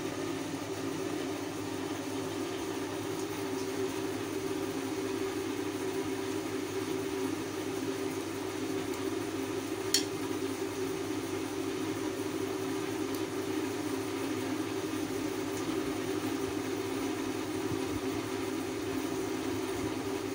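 A steady mechanical hum, like a room fan or motor, runs throughout. About halfway through comes a single sharp tap as the plastic serving spatula strikes the pan while curry is ladled out.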